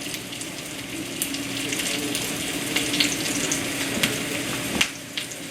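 Rice patties frying in hot vegetable oil in a pan: a steady sizzle with scattered small pops and crackles, the sizzle that shows the oil is hot enough. A single sharp tick near the end.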